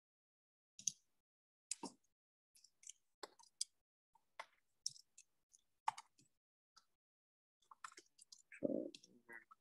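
Scattered sharp clicks at irregular intervals, as of a computer keyboard and mouse being used at a desk. A short, duller knock about 8.6 seconds in is the loudest sound.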